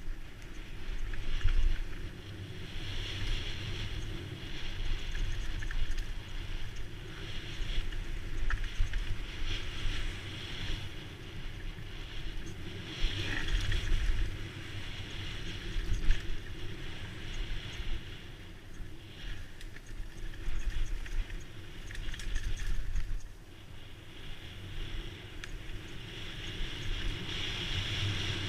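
Wind buffeting the microphone over the low rumble and rattle of a mountain bike riding fast downhill, swelling and fading with speed, with a few sharp knocks.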